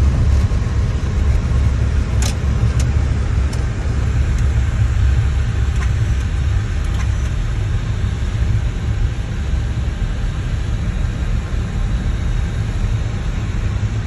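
Cockpit noise of an Airbus A320-family airliner on its landing rollout: a steady low rumble of engines and wheels on the runway, easing slightly as the aircraft slows. A few light clicks come about two to three seconds in.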